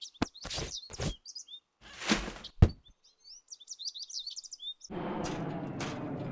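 Sound effects for a cartoon: birds chirping over a run of quick thuds and swishes, the loudest a heavy thunk about two and a half seconds in. About five seconds in, a steady low rumbling noise takes over, with a couple more swishes.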